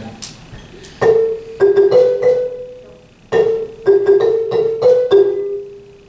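Marimba struck with mallets, playing a short phrase of single ringing notes twice.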